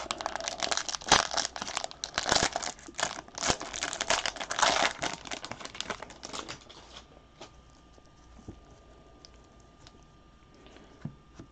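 Foil trading-card pack wrapper being torn open and crinkled, a dense crackling that lasts about seven seconds. It then goes quiet apart from a few faint clicks.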